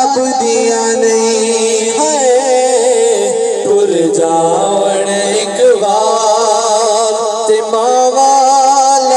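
Two male voices singing a Punjabi naat together into microphones, with long held notes that waver slowly in pitch.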